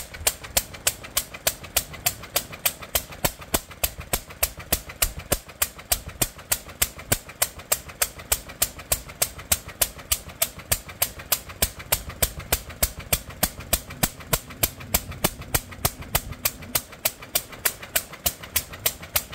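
1946 International Harvester Type LB 1½ hp single-cylinder stationary engine running steadily, with sharp, even exhaust beats at about four a second.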